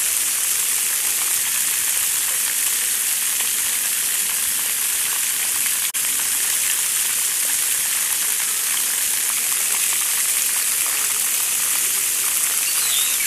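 Splash-pad water jets spraying from arches and poles and falling onto the wet concrete floor: a steady hiss with a momentary break about six seconds in.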